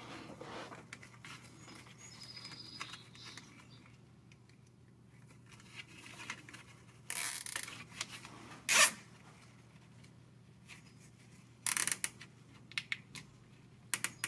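Gloved hands working plastic split-loom tubing around rubber transmission cooler hoses: scattered rustles and clicks, with a few short, sharp bursts of plastic noise, the loudest about nine seconds in.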